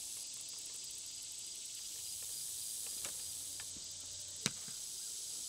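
Steady high drone of insects in a summer field, with one sharp knock about four and a half seconds in as an atlatl dart strikes the target.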